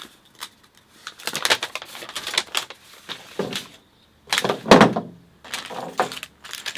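Handling noise: a string of rustles and knocks as the small hardware bag of the tailgate damper kit is opened and its parts handled. The loudest knock comes just under five seconds in.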